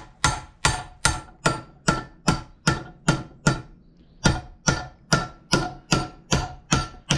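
Hammer striking a steel punch against a bush in a 1955 Fordson Major pedal clamped in a vice, a steady run of about two and a half blows a second with a short metallic ring on each, pausing briefly about four seconds in. The blows are driving at a seized pedal bush that has not yet shifted.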